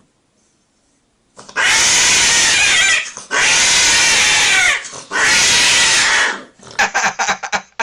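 A female cat screaming during mating, three long, loud, distorted yowls with short breaks between them, then a quick run of short choppy sounds near the end. The cries are a sign of the cat in pain.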